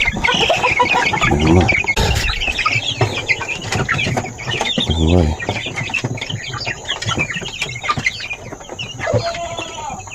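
Flock of chickens clucking, with many short calls overlapping throughout.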